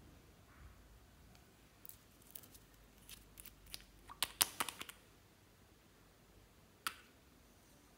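Clear slime being handled, giving a quick run of small sharp clicks and pops for about three seconds, then a single click near the end.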